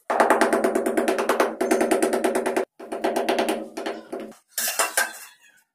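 Rapid tapping on a ceramic wall tile to bed it into its mortar, a fast ringing run of taps about ten a second that breaks off briefly after about two and a half seconds, starts again, then ends in a few rougher knocks.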